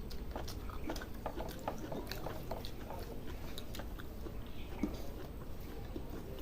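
A person chewing and eating rice with curry by hand, with irregular small wet mouth clicks and smacks.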